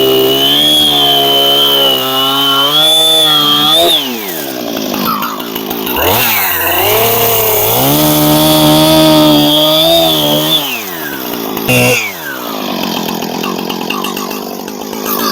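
Chainsaw running at full throttle while making the felling cuts in a small aspen trunk. Its speed drops about four seconds in, climbs back from about six to ten seconds, then falls again, with one short rev near the end before it runs slower.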